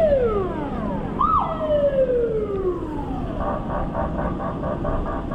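Vehicle siren giving two short whoops, each rising sharply and then sliding down. It then switches to a rapid pulsing tone about five times a second, over steady road noise.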